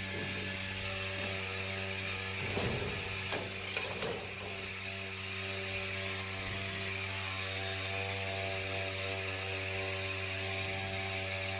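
Running HVAC equipment giving a steady hum over a hiss of moving air. A few brief handling sounds come about two and a half to four seconds in.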